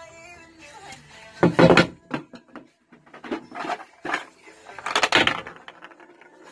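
Handling clatter: a few irregular knocks and rattles as an orange plastic tool case holding a bearing remover and installer kit is picked up and opened, with metal parts set down. Faint music plays under it.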